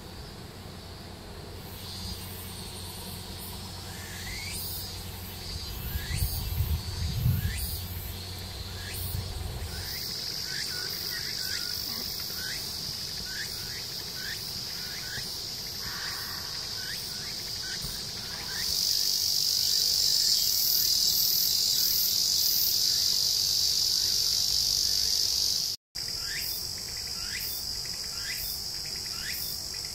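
Summer insect chorus, a steady high buzz that grows louder for several seconds in the middle and cuts out for an instant near the end, with short falling chirps repeating about once a second. Low wind rumble on the microphone during the first ten seconds, strongest about seven seconds in.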